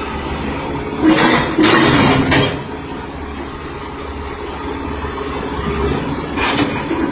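Tractor engine running steadily with a low hum, with a louder, harsher burst about a second in that lasts over a second, and another shorter one near the end.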